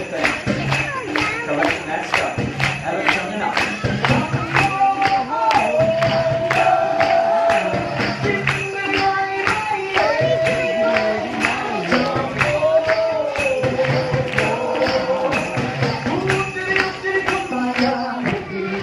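Live music: a steady quick beat of jingling hand percussion, about four strokes a second, with a held, gliding melody line over it.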